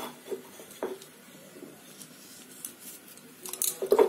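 Light, scattered clinks and taps of metal kitchenware against a stainless steel pot, with a quick cluster of them near the end.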